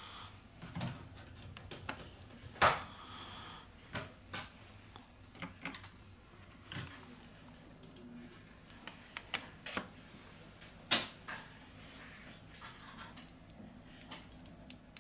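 Irregular light clicks and taps of a tool and small parts against an opened smartphone's internals, with a sharper click about two and a half seconds in and another near eleven seconds.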